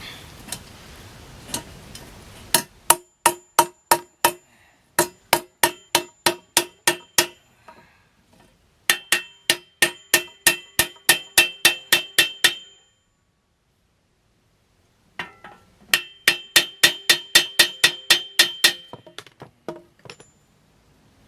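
Sledgehammer striking metal on metal in four quick runs of ringing blows, about four a second, bending over the pin that holds a new shovel handle in its socket.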